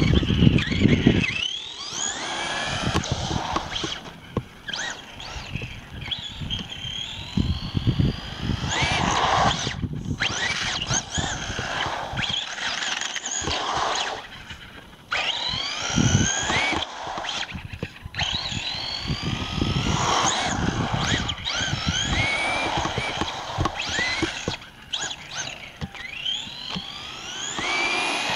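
A 3D-printed RC buggy's electric motor whining as it speeds up and slows down, again and again, with noise from the tyres on asphalt.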